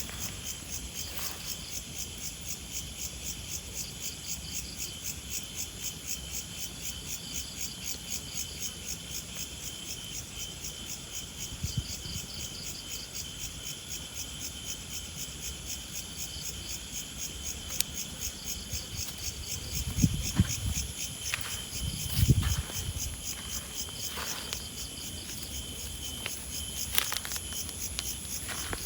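Insects chirping in the grass: a steady, high, pulsing trill at about three pulses a second. A couple of short low thumps come about two-thirds of the way through.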